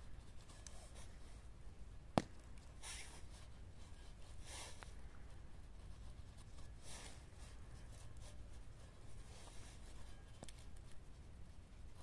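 Hands kneading and pressing dough in a pan, giving soft, irregular swishes and rubs. A single sharp click about two seconds in is the loudest sound.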